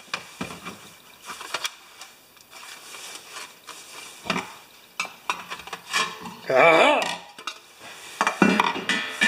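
Thin sheet-metal parts of a thermocouple candle lamp clinking, clattering and rubbing as they are handled during disassembly, with scattered light clicks.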